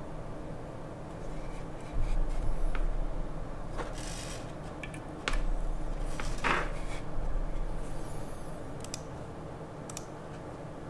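Rubbing and handling noise with a low rumble, and a handful of isolated clicks spaced a second or more apart. It is not a continuous run of typing.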